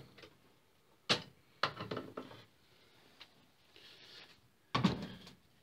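A few short knocks and clicks from a cordless screw gun being handled while mounting hardware, with quiet gaps between; the loudest knock comes near the end.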